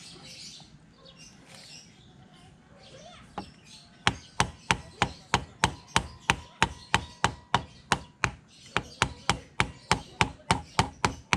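Sharp, evenly spaced clicks, about three a second, starting about four seconds in, from a hand tool turning the bolt in the handlebar's bar end.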